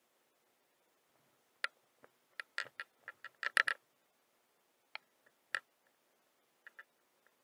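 Irregular sharp clicks and knocks from a small baitcasting reel and rod as the lure is twitched and the line is cranked in. There is a quick run of about a dozen clicks in the first half, then a few scattered ones.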